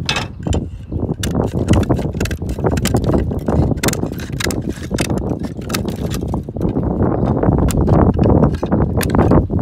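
A hand slate cutter trimming a roofing slate: a rapid, irregular run of sharp crunching clicks as the blades bite through the slate edge, over a steady low rumble.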